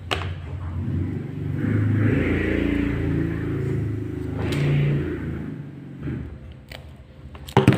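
A motor vehicle's engine rumble that swells over a couple of seconds and then fades away, with a few sharp clicks of pliers on wire, a loud double click near the end.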